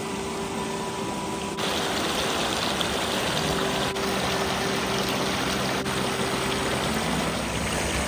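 Shallow creek water flowing and splashing over rocks, louder from about a second and a half in.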